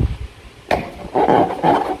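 Slime squelching as it is squeezed and worked by hand: a sharp click just before a second in, then two squelches in quick succession.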